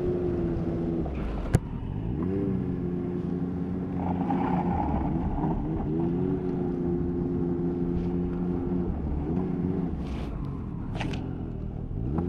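Snowmobile engine pulling away at low speed: its pitch rises and holds steady, falls back as the throttle is let off, then rises again several times. A single sharp click about one and a half seconds in.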